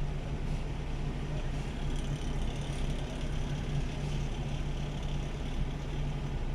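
Mitsubishi car engine idling steadily, running with a newly replaced camshaft position sensor that cured its crank-but-no-start fault.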